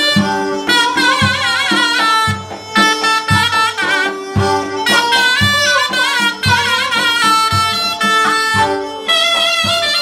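Live Turkish folk dance tune on a kabak kemane, a bowed gourd spike fiddle, and a short reed pipe, playing a highly ornamented melody with quick turns and trills. Underneath, a davul drum strikes a steady beat about twice a second.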